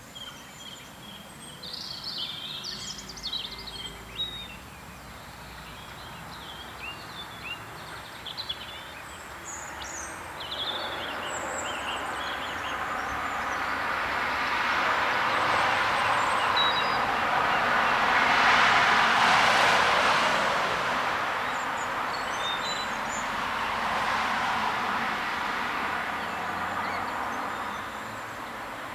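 Small birds chirping in short high calls, then a rushing noise that swells slowly, is loudest a little past the middle and fades away again.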